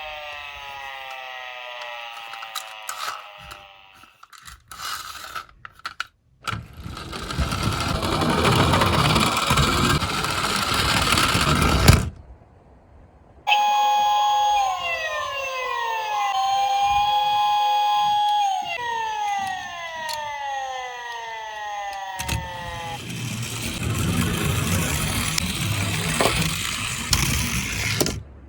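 Toy police car's electronic siren wailing in repeated falling sweeps, then a few clicks and the loud rolling noise of the toy car running down a slope, which cuts off suddenly. After a short gap the siren sounds again, a steady tone broken by falling sweeps, followed by more rolling noise.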